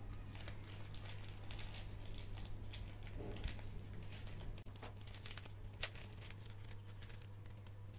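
Crinkling and rustling of a small clear plastic packet being handled and opened, in quick irregular crackles, over a steady low hum.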